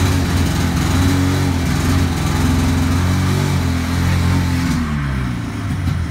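Ski-Doo snowmobile's 500cc Rotax two-stroke twin engine running and being revved up and down with the throttle, in good working order. About five seconds in the revs drop and it settles to a rough, uneven low-speed running.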